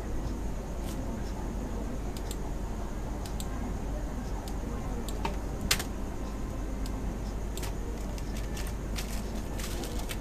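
Computer keyboard keystrokes and clicks tapping sporadically over a steady background hiss and hum, with one sharper click about halfway through and a quicker run of keystrokes near the end.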